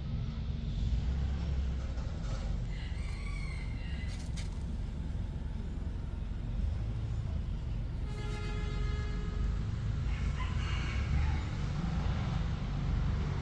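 Steady low rumble of an idling engine, with a rooster crowing once about eight seconds in.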